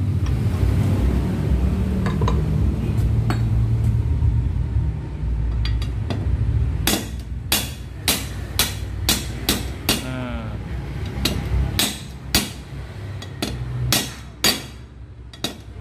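Hammer tapping a needle bearing into an electric jackhammer's housing by hand: about fifteen sharp strikes, roughly two a second, through the second half. They come after several seconds of a steady low rumble.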